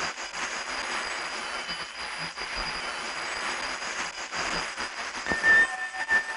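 Shortwave reception of a broadcast from Tokyo: a steady hiss of static and fading noise, with faint steady tones under it. About five seconds in, the tones of the station's interval signal start to come through the noise.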